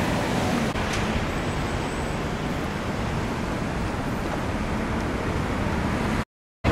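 Steady city street traffic noise: the even rumble and hiss of passing road vehicles. The sound drops out completely for a moment near the end.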